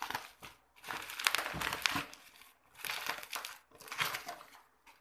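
Plastic bubble wrap crinkling and crackling as it is cut with scissors and pulled off a cardboard box, in four bursts with short pauses between.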